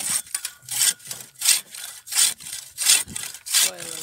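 Footsteps of rubber boots crunching and scraping on snow-dusted lake ice at a steady walking pace, about one step every three-quarters of a second.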